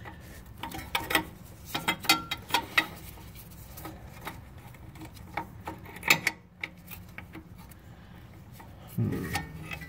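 Irregular small metal clicks and taps, with rubbing, as the turbo oil drain tube and its flange are handled and wiggled into place; the loudest tap comes about six seconds in.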